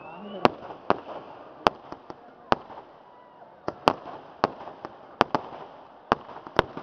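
Fireworks display: a dozen or so sharp bangs of bursting aerial shells and crackers, irregularly spaced a few per second.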